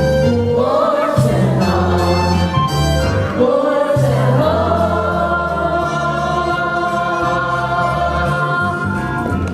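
Chorus of young voices singing a musical-theatre number with instrumental accompaniment, closing on a long held final chord.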